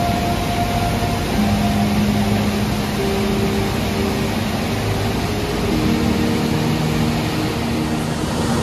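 A large waterfall's loud, steady rush of falling water. Faint held tones shift in pitch every second or two over it.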